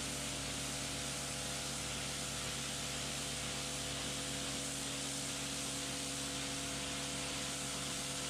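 Kärcher K7 Full Control pressure washer running steadily: a constant hiss of the water jet blasting the patio paving over the steady hum of the machine's motor and pump.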